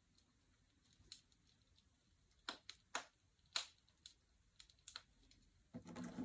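Faint, scattered clicks and taps of small objects being handled on a table, five or six spread over several seconds, with a short rustle near the end.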